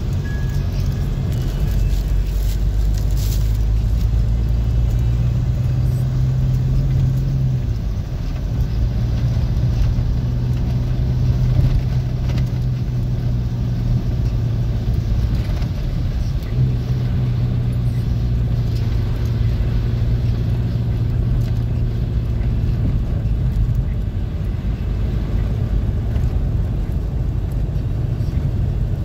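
Car engine and tyre rumble heard from inside the cabin while driving, a steady low hum. The engine note breaks off briefly about eight seconds in and again about sixteen seconds in, then carries on.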